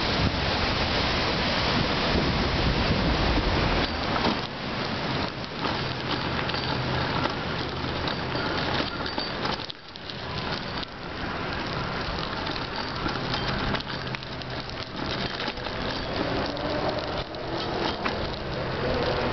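Steady rushing, crackling ride noise of a bicycle on the move: tyres rolling over a gravel towpath, with wind on the microphone. It dips briefly about halfway through.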